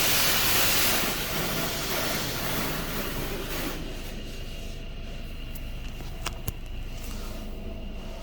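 High-pressure water spray from a touchless car wash hissing against the car, dying away about three to four seconds in. A low steady hum and a couple of sharp clicks follow.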